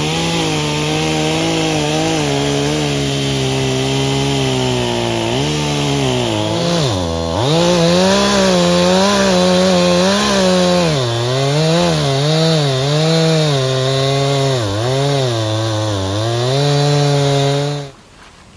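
Chainsaw running under load, cutting through a fallen red oak trunk. Its pitch keeps dipping and recovering as the chain bites, with one deep drop about seven seconds in, and it stops suddenly near the end.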